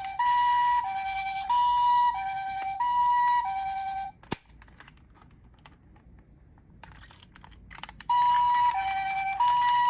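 Japanese ambulance siren sounding its two-tone "pee-po", alternating a high and a low note about every two-thirds of a second. It cuts off abruptly about four seconds in, followed by a sharp click and a few seconds of quiet with faint ticks, then starts up again near the end.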